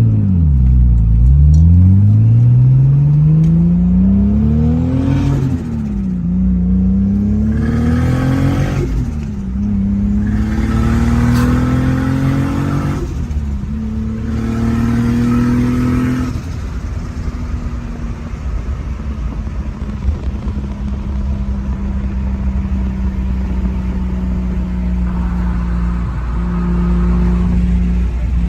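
Toyota Supra's turbocharged 2JZ straight-six with a GT35 turbo, pulling hard through the gears: the revs climb and drop sharply at three gear changes, with turbo flutter between shifts. After a fourth climb the engine settles to a steady cruising note for the last ten seconds or so.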